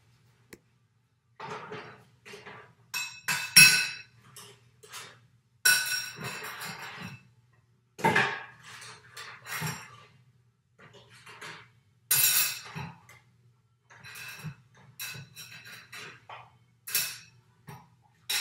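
Irregular clattering clinks and knocks, a dozen or so scattered strikes, several with a brief glassy or metallic ring.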